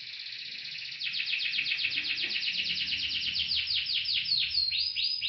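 Canary singing: a long, fast trill of rapidly repeated high notes that gets louder about a second in, then slows near the end into separate falling notes.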